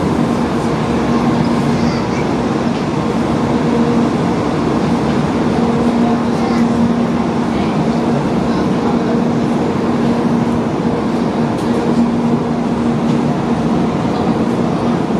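Steady mechanical hum with a constant low drone, under faint background chatter of a crowd.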